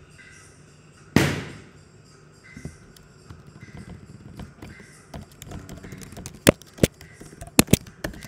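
A loud thud about a second in that rings briefly, then scattered soft taps and four sharp knocks close together near the end.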